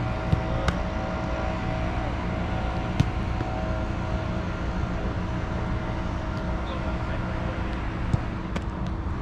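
Soccer balls being kicked in a goalkeeping shot drill: a few sharp thuds, the loudest about three seconds in and several close together near the end, over a steady low rumble.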